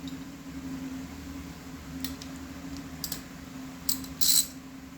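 Metal hand tools being handled and set down: a few light clicks, then two sharper metallic clinks near the end, over a steady low hum.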